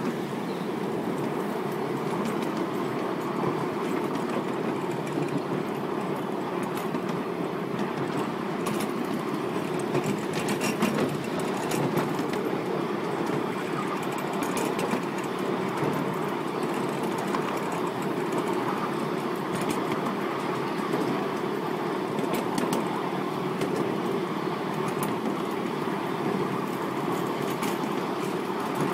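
Ride-on miniature railway train running along the track, heard from a passenger car: a steady rumble of wheels on rails, with scattered sharp clicks.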